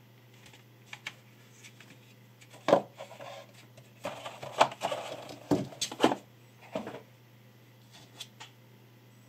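Objects being handled: scattered light clicks, then a handful of sharp knocks spread over the middle few seconds, with rustling and scraping between them, over a steady low hum.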